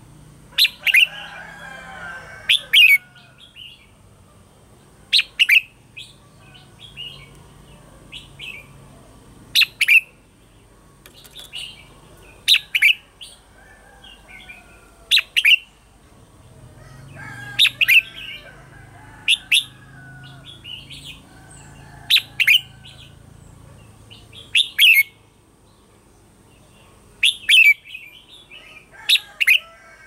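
Red-whiskered bulbuls in competitive song. Loud, sharp notes, mostly in pairs, come about every two to three seconds, with softer chirps and warbles in between.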